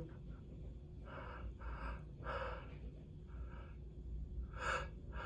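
A man with a stuffed-up head cold taking a series of short, noisy breaths and sniffs through a congested nose, about half a dozen, the strongest near the end.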